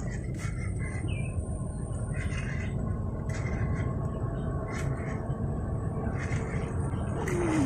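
Swamp-forest ambience: a steady low background hiss with scattered short bird chirps and a few sharp clicks. Background music comes in near the end.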